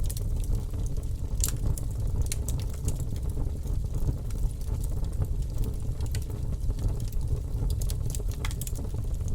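Wood fire burning, with a steady low rumble of flames and frequent sharp crackles and pops from the burning wood.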